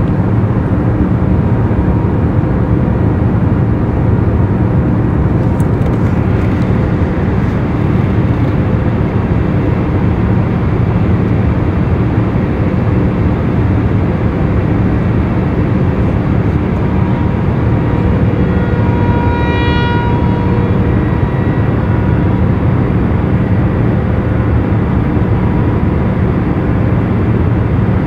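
A loud, steady mechanical roar with a low hum running under it. About twenty seconds in, a short higher tone with several overtones sounds for about a second.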